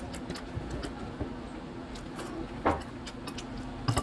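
Mouth sounds of someone eating: wet chewing clicks and smacks, with a louder smack about two and a half seconds in, over a steady low hum.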